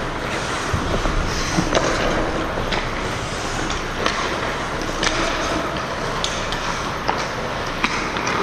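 Hockey game in play: a steady scraping hiss of skates, with frequent sharp clacks of sticks and puck.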